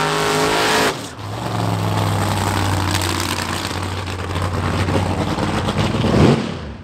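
Drag car engine held at high revs through a burnout, with tyre hiss, cutting off sharply about a second in. Then a drag car engine idles with a steady low rumble and gives one quick throttle blip near the end.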